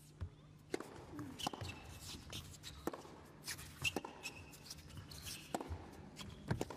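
Tennis rally on an indoor hard court: the serve is struck near the start, then a series of sharp racket hits and ball bounces, with brief shoe squeaks on the court around the middle.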